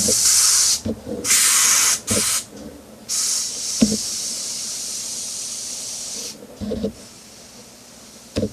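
Top-feed airbrush spraying water-based paint, its air hissing in bursts as the trigger is pressed and released: three short bursts in the first couple of seconds, then a longer one that fades out about six seconds in.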